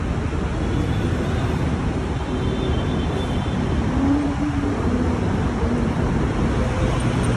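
Steady low rumble of road and traffic noise, with a faint engine hum that rises and fades about four seconds in.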